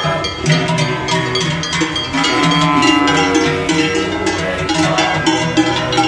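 Large cowbells hung from the necks of a herd of Brown Swiss cows on the move, clanging in a dense, irregular jangle of many overlapping ringing tones as the cows walk.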